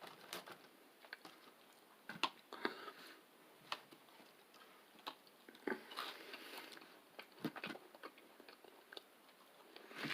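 A person chewing and biting into a chicken sandwich close to the microphone: faint, irregular mouth clicks and smacks.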